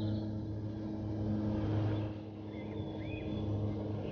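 A steady low, engine-like hum runs throughout. A few birds chirp faintly about two and a half to three seconds in.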